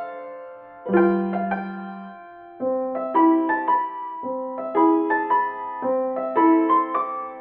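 Background music: a gentle piano melody, notes struck in short phrases over sustained bass notes.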